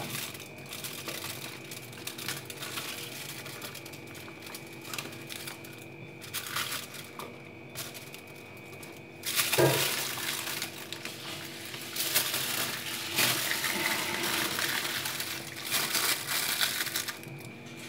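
Banana leaf rustling as it is folded over a parcel of food, then aluminium foil crinkling and crumpling as it is wrapped tightly around it, louder from about halfway through. A faint steady hum runs underneath.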